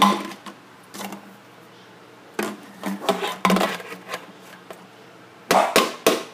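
Irregular scuffing and rubbing: a cloth hand puppet brushing and bumping against a stainless steel sink, in short uneven bursts that bunch up about halfway through and again near the end.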